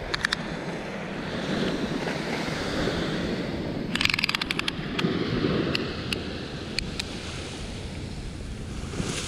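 Ocean surf and wind rumbling on the microphone. A quick run of clicks comes about four seconds in, followed by a few single ticks.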